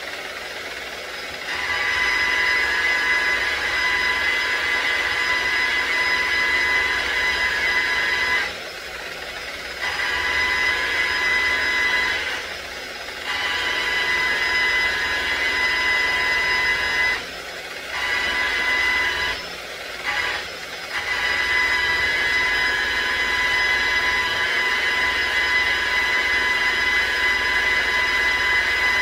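Motor-driven cotton buffing wheel running with a steady whine while an aluminum rocker box is pressed against it for polishing. The louder polishing noise drops back to the wheel's bare whine for a moment several times as the piece is lifted off.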